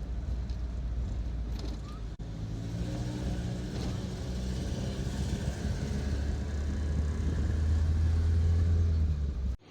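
A car on the move: steady engine and road rumble that grows louder toward the end. It drops out briefly about two seconds in and cuts off suddenly just before the end.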